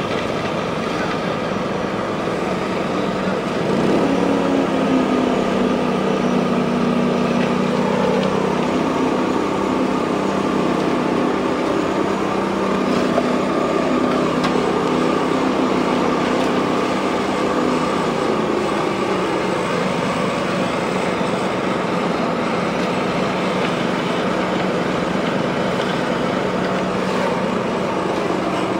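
Walk-behind concrete laser screed's engine running steadily as the machine screeds wet concrete. From about four seconds in, a stronger pitched engine hum joins and gets louder, then falls away at about eighteen seconds.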